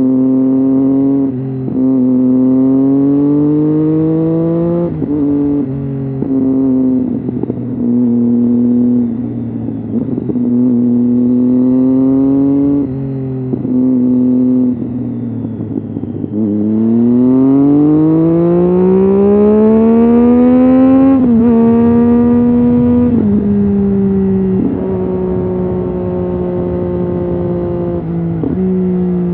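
Triumph Street Triple's 675 cc inline three-cylinder engine under way, its revs rising and falling with the throttle and dropping sharply at each gear change. Past the middle it pulls in one long rising sweep of about four seconds, then changes gear several more times.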